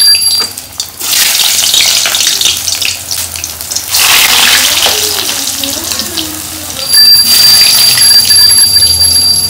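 Cheese nuggets sizzling as they go into hot oil in a kadhai, the sizzle getting louder about four seconds in. A steady high-pitched bell ringing comes in near the end.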